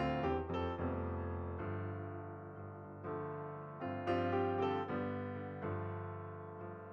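Slow background piano music: notes and chords struck every second or so and left to ring and fade.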